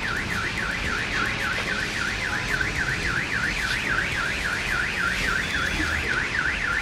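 Car alarm siren sounding continuously, a fast up-and-down wail of about four to five sweeps a second.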